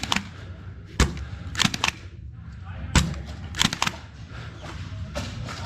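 Foam-dart blasters firing in a Nerf game: a sharp shot about a second in and another about two seconds later, each followed shortly by a quick run of three or four clacks.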